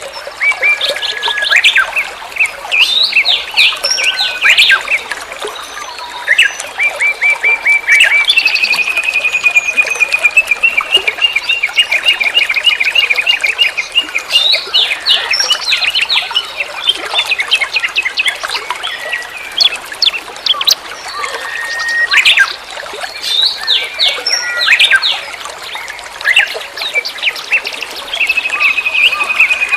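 Birds chirping and calling, several overlapping short sweeping notes, with a long fast trill of repeated notes in the middle and again near the end.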